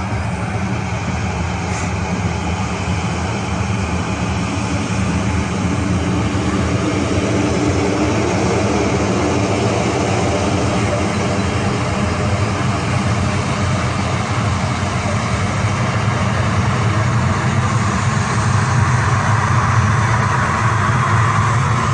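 Airliner jet engines running steadily, slowly growing louder.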